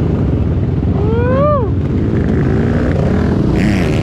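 Yamaha Banshee 350's twin-cylinder two-stroke engine with DMC 916 exhaust pipes running. About a second in, its pitch rises and then drops again.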